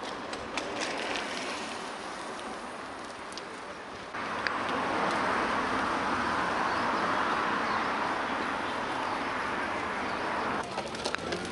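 City street ambience: a steady mix of traffic and urban noise. About four seconds in, a louder, even hiss starts suddenly and holds steady, then cuts off abruptly shortly before the end.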